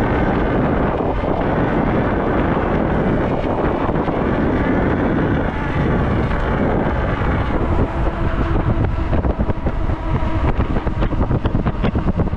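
Heavy wind rushing over the camera microphone as a bicycle is ridden fast downhill. From about eight seconds in the rush turns choppy, in quick gusts.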